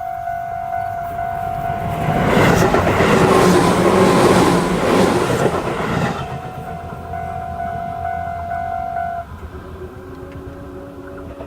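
Japanese railway crossing alarm in the standard Tobu-type sound, ringing a steady electronic tone while a Tobu 8000-series local train passes. The passing train is loudest for about four seconds and drowns the alarm. The alarm cuts off suddenly about nine seconds in, and a few lower steady tones follow near the end.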